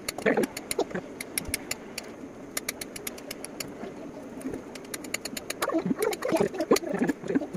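Kitchen knife slicing mini sausages, its blade clicking sharply against the cutting surface many times. An uneven low sound rises over the clicks about a quarter of a second in and again from about six seconds in.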